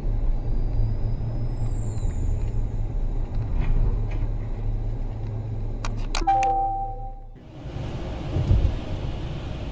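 Car driving, a steady low engine and road rumble heard from inside the cabin. About six seconds in come a few sharp clicks and then a short electronic chime holding a few steady tones. Near the end the rumble gives way abruptly to a hissier road noise with a single thump.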